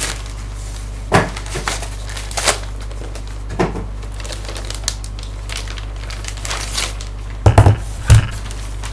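Packaging crinkling and rustling with scattered short clicks as a laptop is lifted and unwrapped by hand, then a couple of loud thumps near the end. A steady low hum runs underneath.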